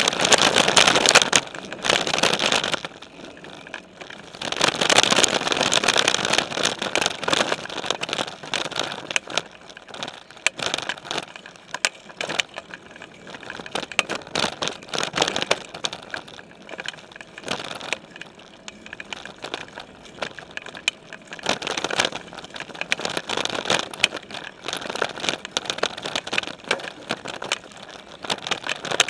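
Mountain bike riding over a dirt singletrack, heard close up from the frame of a Specialized Stumpjumper: tyres rolling and crunching on the dirt while the bike rattles and clatters over bumps. It gets louder and rougher for stretches near the start, around five seconds in, and again about three quarters of the way through.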